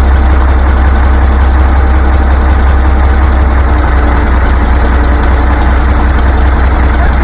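Caterpillar 3412 V12 diesel engine of a generator set running steadily with a loud, deep drone, on its first run after years of sitting.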